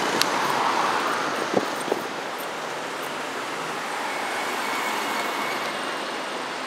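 Road traffic noise on a town street: a vehicle passes and fades over the first two seconds, then a steady hum of traffic remains, with a few light knocks.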